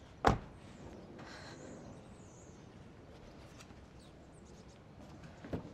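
A car door is shut once with a single sharp thud. Then quiet outdoor background with a few faint bird chirps.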